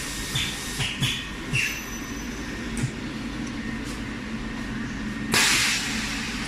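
Pneumatic automatic disc high-frequency plastic welding machine cycling in automatic mode over a steady low hum: short air hisses and clicks in the first two seconds, then a long loud blast of compressed air exhausting about five seconds in.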